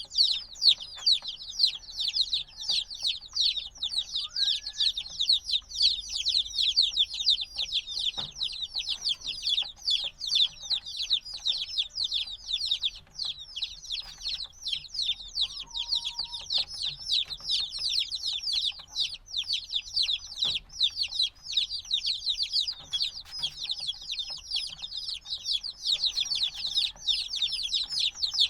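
A brood of newly hatched chicks, a few days old, peeping together without pause: a dense stream of rapid, high-pitched, falling peeps overlapping one another.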